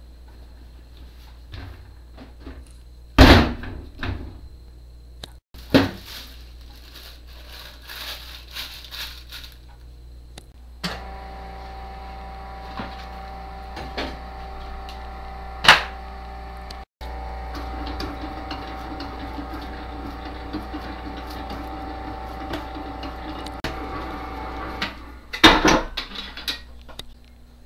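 Commercial planetary stand mixer running steadily while its dough hook kneads bread dough. It comes in about eleven seconds in as a steady motor hum with several held tones and stops near the end with a few knocks. Before it come scattered knocks, clicks and clatter of handling dough and a bowl.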